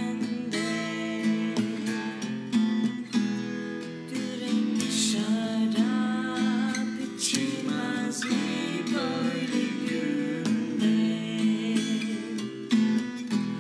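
Acoustic guitar strummed in a steady rhythm, with a woman's voice singing over it.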